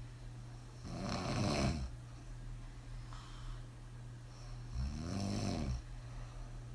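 A woman snoring hard, asleep on her back with her mouth open after several drinks: two snores about four seconds apart, each about a second long, with a softer breath between them.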